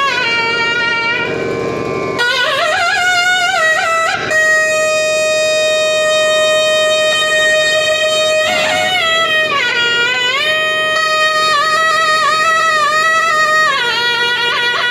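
Nadaswaram playing a slow melody in raga Sindhubhairavi, with gliding ornaments and long held notes; the line passes from one nadaswaram player to the other near the end.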